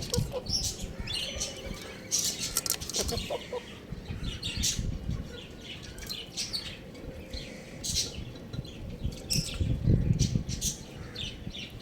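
Birds chirping in many short, high calls, scattered irregularly, over a steady low rumble that swells around ten seconds in.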